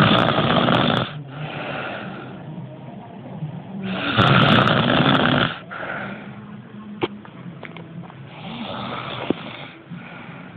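A person snoring: two loud snores about four seconds apart and a weaker third near the end, each followed by a softer breath sound.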